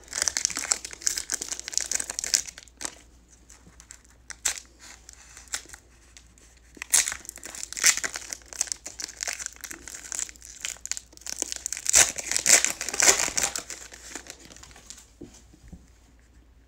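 Foil wrapper of a 2019 Panini Certified football card pack crinkling and tearing as it is ripped open and peeled back by hand, in several bursts, the loudest about three-quarters of the way through. It goes quiet near the end as the cards are slid out.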